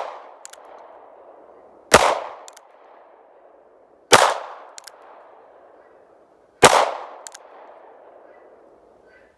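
Three shots from a North American Arms mini-revolver firing .22 Magnum, spaced about two and a half seconds apart, each with a short decaying tail and a faint click about half a second after it.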